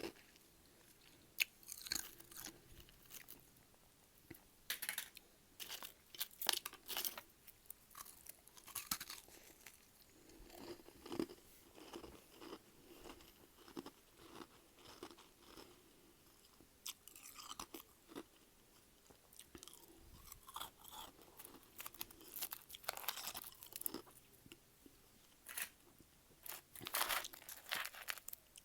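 Freezer frost being bitten and chewed close to the microphone: irregular crisp crunches, several to a second in clusters.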